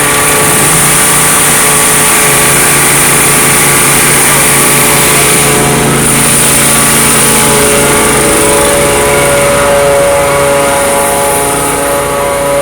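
Small gasoline engines of a pressure-washer rig, including its generator, running steadily together.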